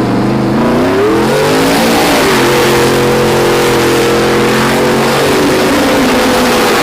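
Car engine revving: its pitch dips at first, climbs about two seconds in, then holds steady.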